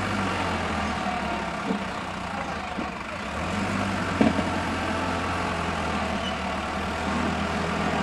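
Tractor diesel engine running steadily under heavy load, hauling a laden soil trailer uphill, with a short knock about four seconds in.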